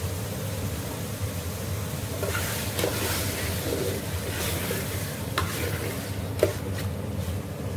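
A metal spoon stirring chicken liver masala in an aluminium pot. It scrapes through the food from about two seconds in and clinks sharply against the pot twice, the second clink the loudest, over a steady sizzle from the pot.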